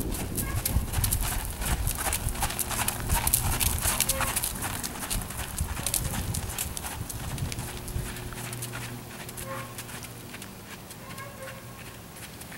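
Holsteiner horse trotting on soft arena footing: a steady run of hoofbeats that grows gradually fainter over the second half.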